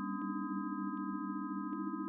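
Synthesised pure sine tones from a many-voiced MaxMSP synthesiser, each voice standing for one cell: a dense cluster of low tones beats against itself beneath several steady higher tones. A high tone comes in about a second in, and the low cluster steps up in pitch twice with a small click.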